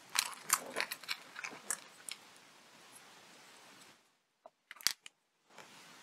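Stiff shrink-plastic flower pieces clicking and crackling against each other and the thin wire as they are handled and threaded on. A quick run of small clicks comes in the first two seconds, then a few more sharp clicks about five seconds in.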